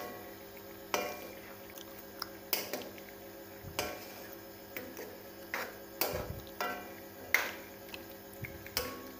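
Metal ladle knocking and scraping against a steel karahi while stirring thick, simmering chicken curry: irregular sharp clanks with a short metallic ring, about one a second, over a faint steady hum.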